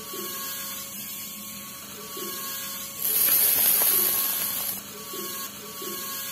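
Small electric motor of a miniature model machine running with a steady hum and a soft knock about once a second. About halfway through, a louder hiss lasts nearly two seconds as dry grey mix slides down the chute into the red drum.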